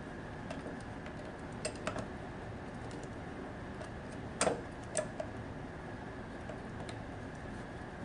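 Scattered light clicks and taps of hands and tools handling the plastic parts of a diaphragm valve, with two sharper knocks about four and a half and five seconds in.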